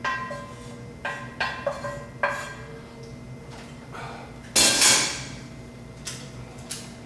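A cooking pot and metal strainer knocking together in ringing clanks while shrimp stock is being strained. About halfway through comes a louder noisy rush lasting about half a second, then two lighter knocks.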